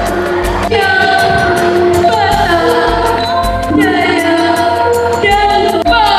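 A girl singing through a microphone and PA, long held notes with slides between them, over backing music with a steady ticking beat; the voice comes in about a second in.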